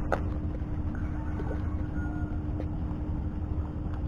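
Steady low rumble of wind on the microphone, with a faint constant hum running through it.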